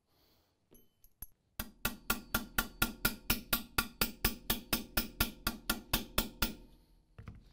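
Rapid, even metallic tapping, about five strikes a second for some five seconds, as the bolt release button assembly in the M1014 shotgun receiver is driven down to seat it against its spring tension.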